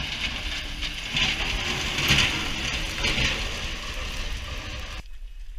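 Sanitation garbage truck with a front snow-plow blade driving past on a slushy street: a steady hiss of the plow and tyres pushing through slush over a low engine rumble, swelling a few times as it nears. The sound cuts off shortly before the end.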